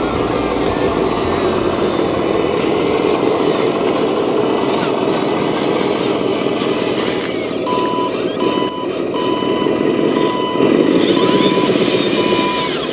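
RC model truck running with a steady mechanical drone, and partway through a reversing beeper starts: one pitch repeated in even short beeps, about two a second.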